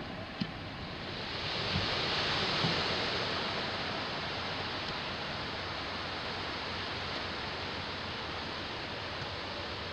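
Ocean surf washing, swelling to a peak a couple of seconds in and then settling into a steady rush, with a small click near the start.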